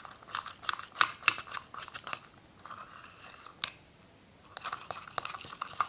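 Freshly made glitter-glue slime being worked in a small pot, a quick run of sticky, wet clicks and squelches that pauses briefly after a few seconds and then starts again. The slime is firming up and pulling away from the pot.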